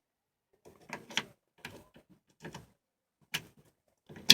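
Replacement ignition lock cylinder being pushed into a 1978 Camaro's steering-column ignition housing: a series of short metallic clicks and scrapes, with a sharp, louder click near the end.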